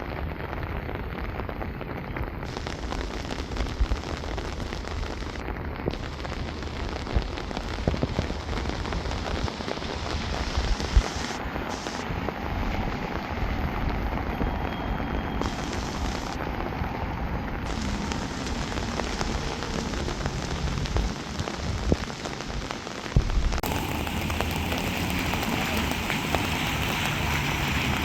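Steady rain falling, with scattered louder drop hits; about four-fifths of the way through the rain sound abruptly turns brighter and hissier.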